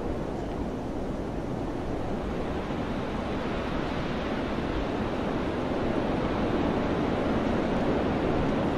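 Wind blowing steadily over mountains, a low, even rushing that grows gradually louder toward the end.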